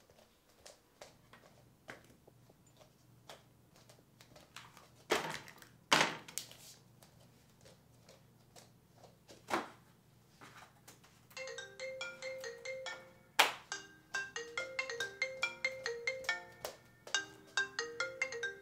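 A few knocks and thuds of things being handled, two of them loud about five and six seconds in, then about eleven seconds in a mobile phone starts ringing, a repeating melodic ringtone that goes on to the end.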